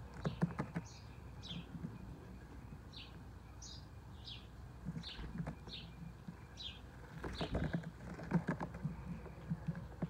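House sparrows chirping, a short high chirp roughly once a second, with clusters of light rapid tapping from beaks pecking at food on the plate and tabletop near the start and again after about seven seconds.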